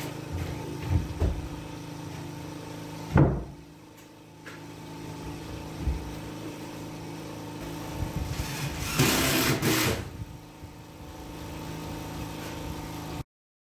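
A large OSB sheet being handled against a wooden pallet wall: scattered knocks, one loud knock about three seconds in, and a rough scraping rub from about eight to ten seconds. A steady engine hum runs underneath, and everything cuts off abruptly near the end.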